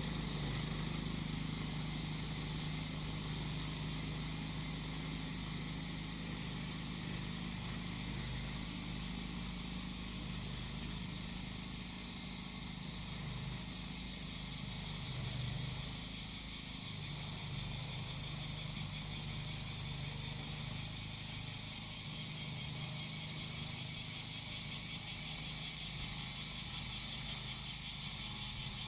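Small engine of a grass-cutting machine running steadily, with cicadas singing over it. About halfway through, the cicada song grows louder and turns into a rapid, even pulsing buzz.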